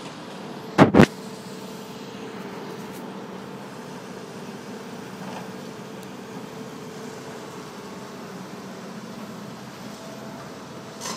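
Steady hum of a tracked excavator's diesel engine working on a demolition site, with two sharp, very loud knocks close together about a second in.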